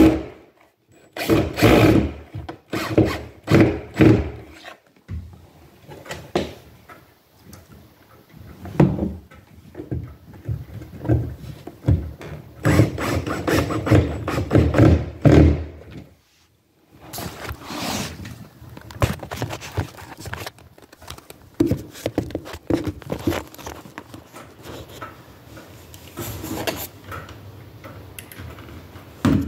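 Irregular knocks, thunks and scraping from hands and tools working at the bottom of a front door while a door sweep is fitted, coming in clusters with short pauses between them.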